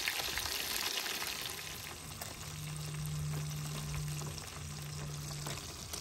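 Small whole fish deep-frying in a tray of hot oil, a steady sizzling crackle. A steady low hum joins about two and a half seconds in.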